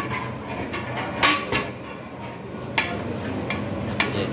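Metal ladle striking and scraping against a large aluminium biryani pot (daig): a few sharp, ringing clinks over a steady low background noise.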